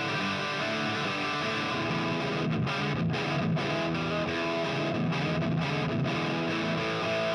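Electric guitar playing a rock chord riff through a Marshall amp, its clean channel turned up to 10 to give an overdriven, plexi-style crunch. The chords ring on steadily, with a few short stops around the middle.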